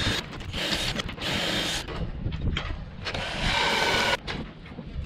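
Cordless drill running in about four short bursts, its bit cutting into the gelcoat and fibreglass of a boat deck to chamfer a bolt hole.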